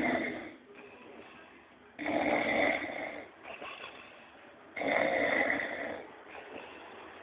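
A man snoring heavily: loud rasping snores of about a second each, repeating about every three seconds, with quieter breathing between them.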